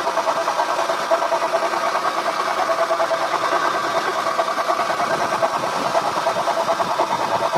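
2006 Acura TL's 3.2-litre V6 idling with its failing power steering pump making noise: a steady hum with a fast flutter. The mechanic expects the pump, which also leaks, to show play in its shaft once the belt is off.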